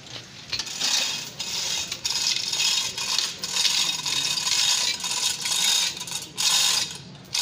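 Manual chain hoist rattling as its hand chain is pulled hand over hand, with the links clattering through the block and the ratchet clicking while it holds a Toyota 1KD diesel engine.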